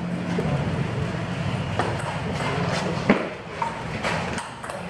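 Table tennis ball being struck back and forth in a rally: a run of sharp clicks and knocks of ball on paddle and table, the loudest about three seconds in.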